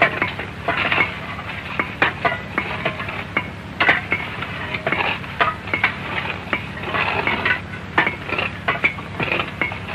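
Irregular clinks and knocks of picks and shovels striking earth and stones, several a second, some hits ringing briefly.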